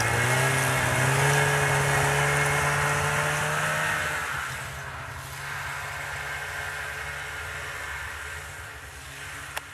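Snowmobile engine running under throttle, its pitch rising in the first second and holding, then easing off about four seconds in and running quieter. A short click near the end.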